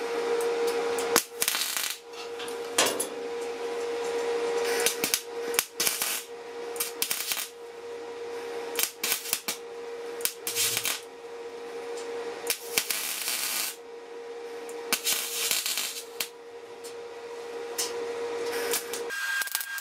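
MIG/MAG welding arc crackling and sputtering in short, irregular bursts as spots are welded onto thin sheet steel, with a filler rod fed into the weld by hand. A steady hum runs underneath and cuts off about a second before the end.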